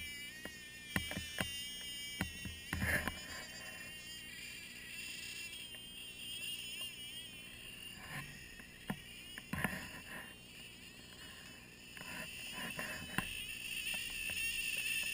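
Radio-controlled snowmobile's motor whining, its high pitch rising and falling with the throttle, with a few scattered thumps.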